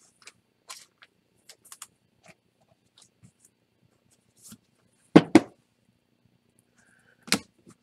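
Hands sliding a trading card into a rigid plastic toploader: faint plastic rustles and small clicks. Two sharp knocks come close together about five seconds in, and another near the end.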